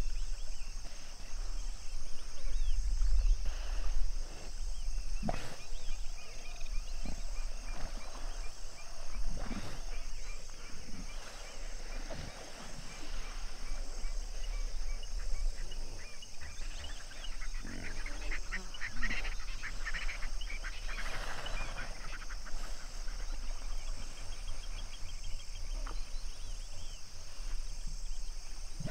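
Honking animal calls, bunched together about two-thirds of the way in, over a steady high chirring of insects and a low rumble.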